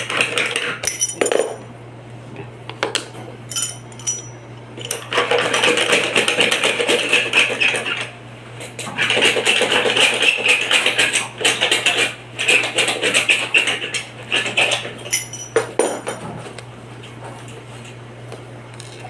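Aluminium screen-door parts being worked by hand: scattered metal clinks and knocks, with two long stretches of rapid metallic scraping and rattling in the middle, over a steady low hum.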